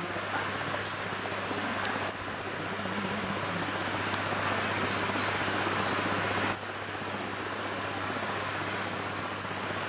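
Steady rush of a wide, shallow river running over rocks and rapids, with a low hum underneath and scattered light clicks.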